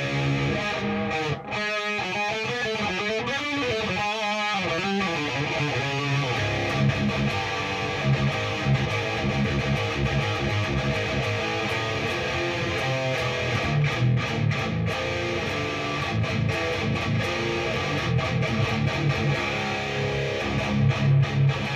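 Electric guitar played through a Peavey 6534+ EL34 tube amp head at high gain: a distorted metal riff with wavering, bent notes about two to five seconds in, then rhythmic palm-muted chugs.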